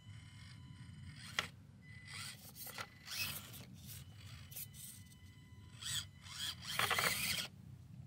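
Axial SCX24 1/24-scale RC crawler climbing rock: its tyres and chassis scrape and scrabble against the stone in short bursts, the longest and loudest about seven seconds in as it noses up the rock face, over a faint steady high electric-motor whine.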